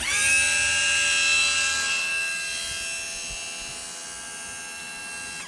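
A 30-plus-year-old 500 gph 12-volt submersible bilge pump, freshly cleaned of packed grease and broken belt debris, running with a steady motor whine while it pumps water out through its discharge hose. The whine rises briefly as the motor spins up, holds steady, eases somewhat after about two seconds, and stops abruptly at the end.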